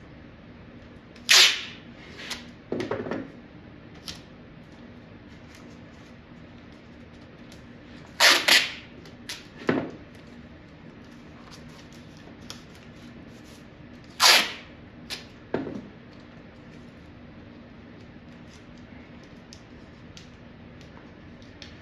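Masking tape ripped off the roll three times, each a sharp, quick rasp, with softer crackles of tape and a plastic sheet being handled in between.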